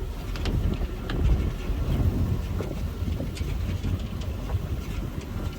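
All-terrain amphibious vehicle running, a steady low engine rumble with scattered light clicks and knocks.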